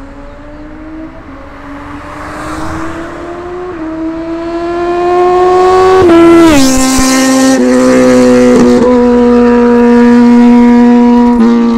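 A superbike with a loud aftermarket exhaust making a high-speed flyby. The engine note climbs and grows louder as it approaches, drops sharply in pitch as it passes about six seconds in, then stays loud and steady at high revs.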